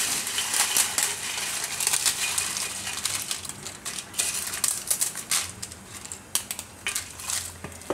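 Brittle pieces of papad being pushed and slid off a steel plate into a pot of yogurt curry: a dry crackling and rustling of the crisp pieces with many small clicks and scrapes against the plate, busiest in the first half and thinning to scattered clicks later.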